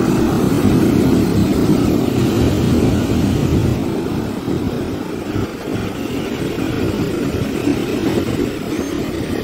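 Sea surf breaking and washing up over a sand beach, with strong wind rumbling on the microphone; loudest in the first few seconds as the foam runs up the sand.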